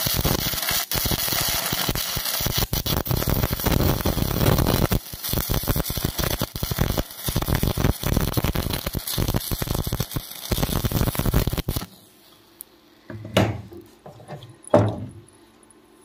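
Stick welding arc burning on steel: a loud, steady crackling and sputtering that stops abruptly about twelve seconds in. Two short, louder sounds follow near the end.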